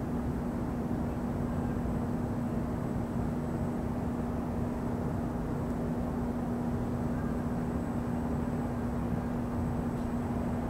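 Steady low rumble of distant city traffic, with a steady low hum running through it.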